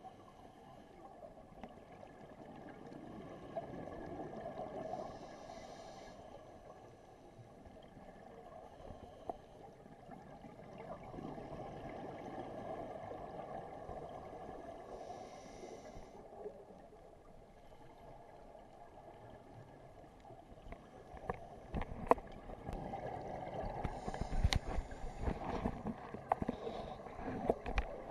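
Scuba diving heard underwater: a diver breathing through a regulator, with a slow rumble of exhaled bubbles swelling and fading and a brief hiss of inhalation about every ten seconds. In the last several seconds, sharp knocks and clicks from handling the camera housing.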